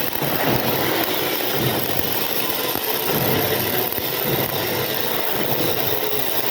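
Electric arc welding: the arc crackles and hisses steadily.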